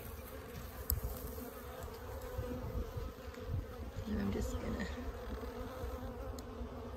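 Honeybees buzzing steadily around an opened hive during an inspection, a hum of many wings, with a single sharp click about a second in.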